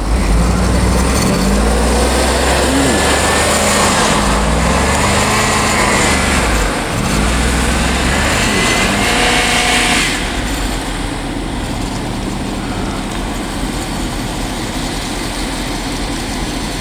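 Chevy pickup truck engine revving up and down repeatedly while the truck works in deep snow, then dropping to a quieter, steadier run about ten seconds in.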